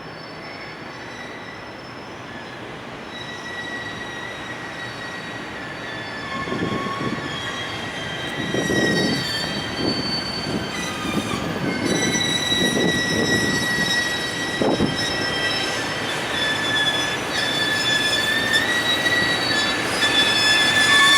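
Container freight train behind an EF510 electric locomotive pulling out, its wheels squealing in several steady high tones that grow louder as it comes closer. Rumbling knocks from the rolling wagons come between about six and fifteen seconds in.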